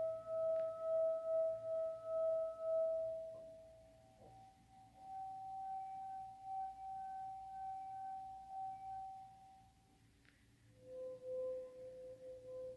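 Wine glasses partly filled with water, sung by a wet finger rubbed around the rim: a steady ringing tone with a slight pulsing, then after a short gap a higher tone from the glass with the least water, then a lower tone from the fullest glass. The three glasses are tuned to the notes of a major chord.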